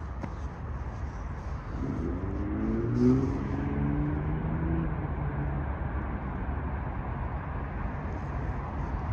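DART light rail train rolling in with a steady low rumble. A low humming tone swells from about two seconds in and fades out after about five seconds.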